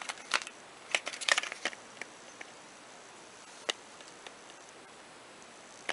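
Small clicks and taps of fingers and nails handling a small cardboard box: a quick cluster about a second in, then a few single clicks, over a faint steady hiss.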